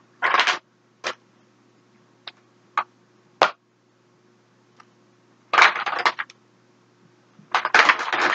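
Makeup compacts and cases clicking and clattering as they are handled and rummaged through. There are single sharp clicks, and three short bursts of rattling: one near the start, one around six seconds in, and one near the end.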